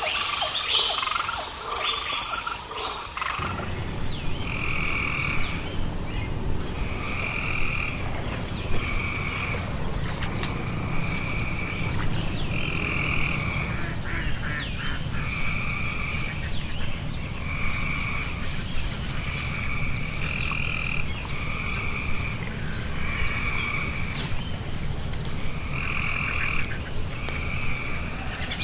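Frogs croaking, repeated calls each under a second long coming about once a second, over a steady low rumble. A high steady shrill dominates the first three seconds or so, then stops.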